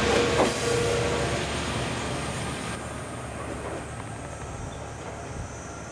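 Heichiku Railway diesel railcar No. 408 running away down the track, its engine and wheel noise fading steadily as it recedes. A steady whine heard at the start stops about a second in.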